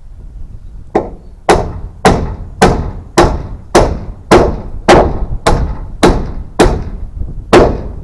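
Hammer striking nails into wood at a steady pace of about two blows a second, about a dozen sharp blows in all, starting about a second in.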